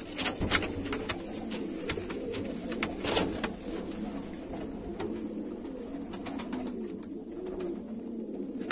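Hungarian pigeons cooing steadily, low wavering coos that overlap one another. A few sharp clicks break in, the loudest about three seconds in.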